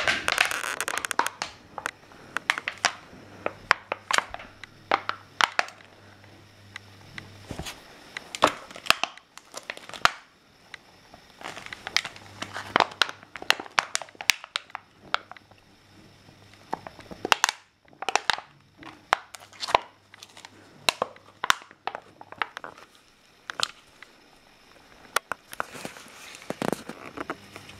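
An empty plastic drink bottle crackling and crunching in irregular bursts as a small dog bites and chews it.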